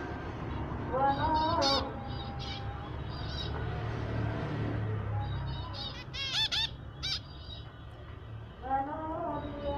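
Zebra finches calling and singing in a busy chatter: nasal beeping calls mixed with quick high chirps, with a run of rapid high notes about six seconds in. A steady low hum runs underneath.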